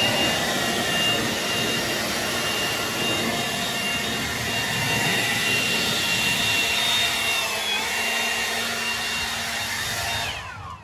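Milwaukee M18 cordless blower running steadily at full speed with a high whine, blowing water off a wet boiler control. Near the end it is switched off and its whine falls away as the fan spins down.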